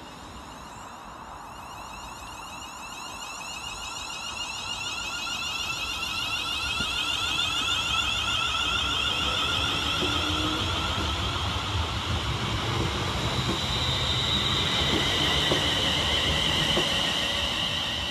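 London Northwestern Railway Class 350 Desiro electric multiple unit pulling away, its traction motors whining in several high tones that grow louder through the first half, over the rumble of its wheels on the rails.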